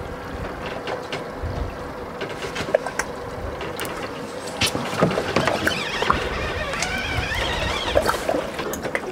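Boat motor humming steadily over water noise, with scattered clicks and knocks as a fisherman handles a rod and lever-drag conventional reel in its holder and starts winding in a fish. A wavering higher-pitched sound comes in for a couple of seconds past the middle.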